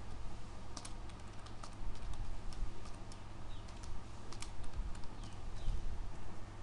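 Computer keyboard being typed on in short, irregular keystrokes as a password is entered and then entered again to confirm it, over a steady low hum.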